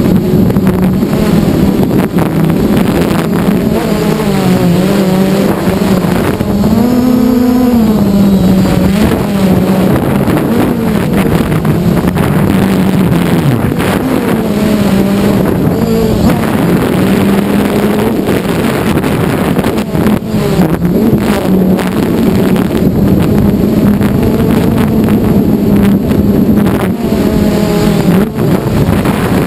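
Multirotor drone's electric motors and propellers buzzing loudly, heard up close from the camera on the drone itself, the pitch wavering up and down as the throttle changes.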